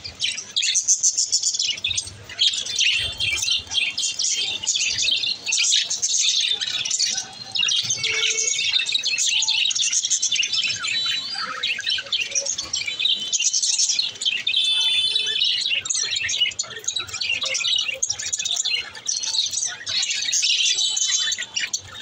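A flock of budgerigars chirping and chattering without a break, many high calls overlapping.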